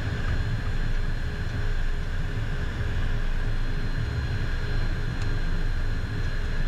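Cockpit noise of a Beechcraft Premier 1A's twin turbofan engines at taxi power: a low rumble with a few faint steady high tones, with a faint tick about five seconds in.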